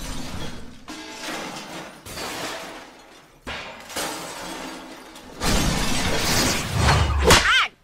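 Cartoon sound effects of crashing and shattering, like breaking glass, with a sudden loud hit at the start, another around the middle and a longer loud stretch near the end that closes on a short rising-and-falling tone, over background music.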